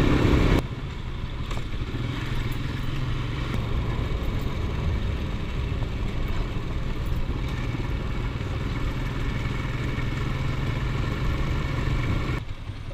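Motorcycle engine running steadily as the bike cruises, with road and wind noise.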